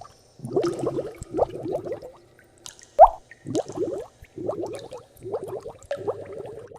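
Water sound effect: clusters of short, rising bubbly bloops and drips, with one louder plop about three seconds in.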